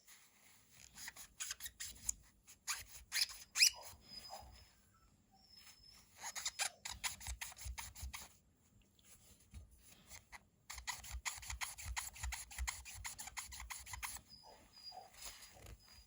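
Quick back-and-forth rubbing strokes polishing grime off the parts of a disassembled Rockstead Higo II folding knife. The strokes come in three spells, the longest and fastest near the end.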